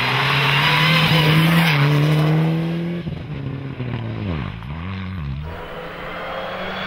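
Mitsubishi Lancer Evo IX rally car's turbocharged four-cylinder engine held at high revs as the car slides into a corner, with tyre and gravel noise over it. About three seconds in the throttle comes off and the revs dip and rise several times through the bend. The engine then settles to a steadier, quieter note as the car pulls away.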